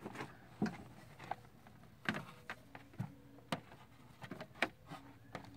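Irregular light knocks, taps and rubbing from handling a clear braided vinyl water-softener brine line and its fittings, a dozen or so scattered clicks with no steady rhythm.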